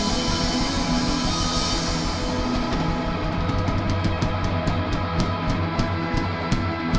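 Live instrumental rock band: electric guitar holding sustained, ringing chords over a drum kit. A cymbal wash fades out about two and a half seconds in, leaving a steady beat of sharp drum and cymbal hits, several a second, under the guitar.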